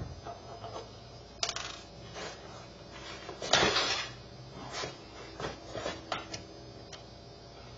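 Hands fitting the cover plate back onto an EV charger unit: scattered light clicks, taps and scrapes of hard parts handled and set in place, the loudest about three and a half seconds in.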